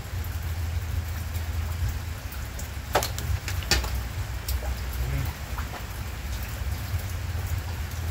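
Heavy rain falling steadily. Two sharp knocks sound about three seconds in, less than a second apart.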